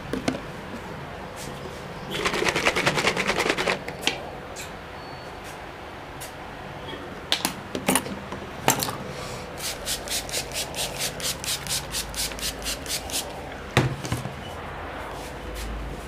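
Hands working skin in a head massage: a quick run of rapid taps about two seconds in, a few sharp slaps, then rhythmic skin-on-skin rubbing strokes at about four a second for several seconds.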